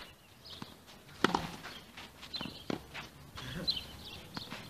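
Tennis ball struck by a racket on a clay court: a few sharp pops, the loudest about a second in, with footsteps scuffing on the clay between hits.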